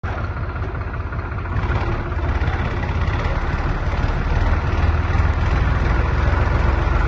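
Tractor engine running steadily with an even low throb as it drives through floodwater, growing a little louder about a second and a half in.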